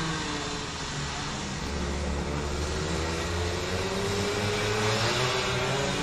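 Several racing kart engines running on the circuit, more than one at a time, their pitch climbing gradually as the karts accelerate.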